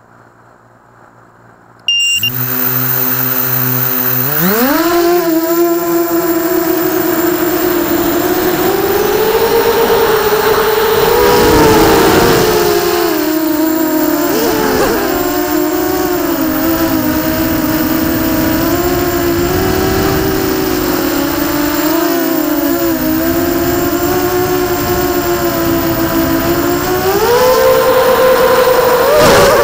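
Brushless motors of a QAV250 racing quadcopter, heard through its onboard camera: about two seconds in they start spinning at idle with a steady low whine, then rise sharply in pitch as it takes off. Through the flight the whine rises and falls with the throttle, and it climbs again near the end.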